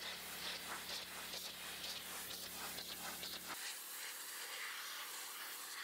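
Pressure washer jet blasting water onto concrete wall blocks: a steady hissing spray. A low hum under the spray cuts off suddenly a little past halfway, while the hiss goes on.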